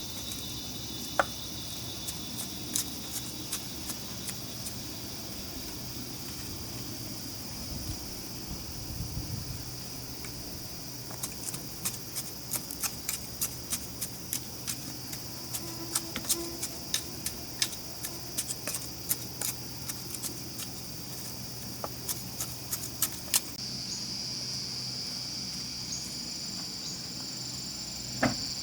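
Steady high-pitched chirring of crickets or other insects, with a quick run of sharp taps or knocks through the middle.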